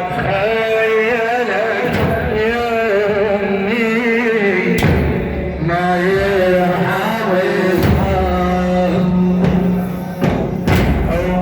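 Male reciter chanting a melismatic religious lament, his voice wavering and ornamented over a steady low drone, with a few dull thuds a few seconds apart.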